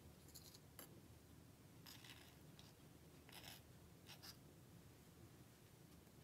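Faint, short scrapes and light clicks of miniature kitchen utensils and a tiny wooden chopping board being handled, with chopped vegetable pieces tipped from the board into a little pan. There are about six of these brief scratchy sounds over low room hum.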